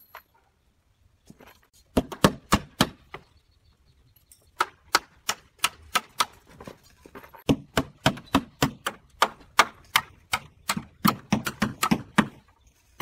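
Runs of sharp, quick hammer blows, about three a second, with a short pause about three seconds in.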